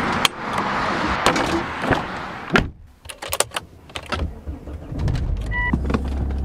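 A metal door handle clicking over steady outdoor noise, then, inside a car, the ignition key clicking, a short two-tone dashboard chime, and the engine starting about five seconds in and idling with a steady low hum.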